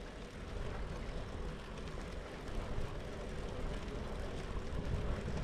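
Steady riding noise from an electric folding bike under way: wind on the microphone and tyres rolling on the road, with a faint steady hum.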